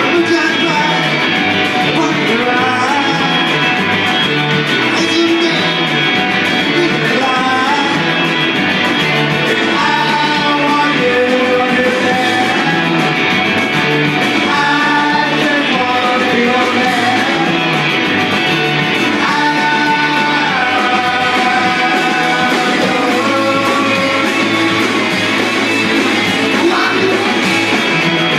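Live rock band playing with electric guitars, bass and drums under a singing voice.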